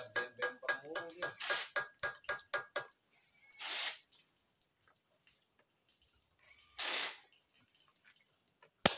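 A small hammer tapping rapidly on the metal of a bare engine block, several sharp strikes a second. The tapping stops about three seconds in. Two short hissing bursts follow, and the tapping starts again at the very end.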